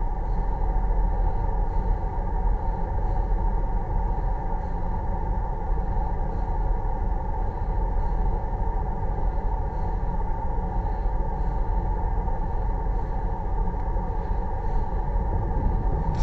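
A car driving: steady engine and road rumble, even throughout.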